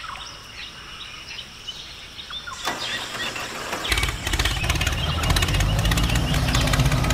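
Birds chirping. About two and a half seconds in, an engine starts and settles into a steady, low, evenly pulsing run as the toy tractor drives out.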